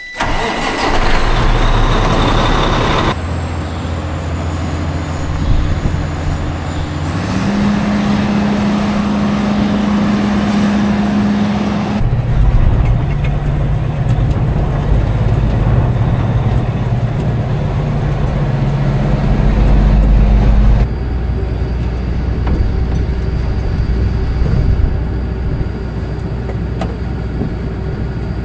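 Combine's diesel engine running steadily. Its pitch and loudness jump abruptly a few times as the sound cuts between moments.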